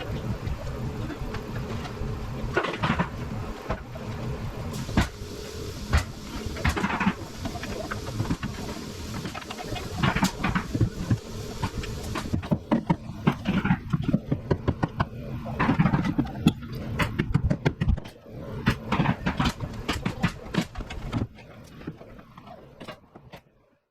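Construction-site framing noise: repeated sharp knocks and bangs over a steady low engine rumble that drops away about halfway through.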